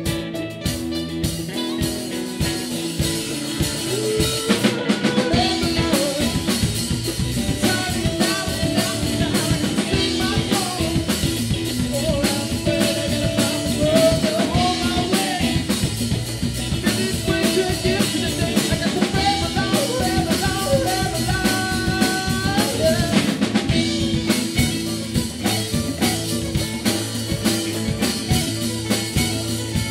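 Rock band playing live: drum kit, electric guitars and bass guitar, with a wavering lead melody over the top from about four seconds in until about twenty-four seconds in.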